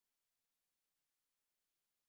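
Near silence: the audio track holds only a faint, even hiss.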